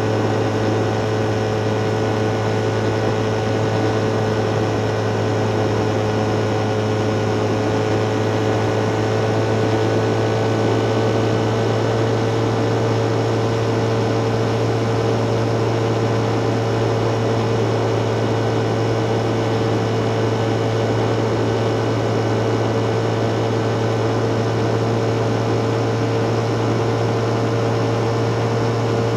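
Motor vehicle cruising at about 80 km/h: a steady whine from its running gear that creeps slightly higher in pitch as it speeds up, over a constant low hum and road noise.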